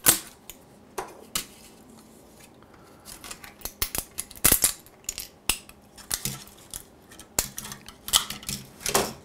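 Plastic 3D-printed parts being snapped and pried off their raft and support material by hand: irregular sharp cracks and clicks, with clusters about halfway through and near the end, and small pieces knocking down onto a wooden desk.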